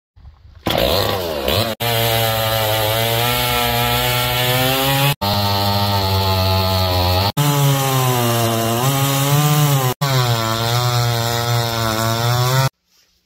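Two-stroke chainsaw engine running at high revs, in several short clips spliced together, each cut off abruptly. Its pitch wavers slightly as the throttle moves.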